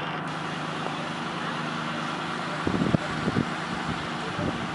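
2010 Tempstar N4H3 heat pump outdoor unit running: a steady fan whoosh over a low, even hum. A few short low thumps come a little past the middle.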